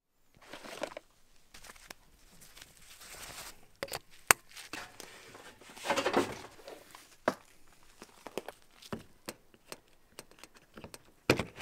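Work gear being handled: rustling and crinkling, scattered sharp clicks and knocks, and a louder rustle about six seconds in. The cement mixer is not running.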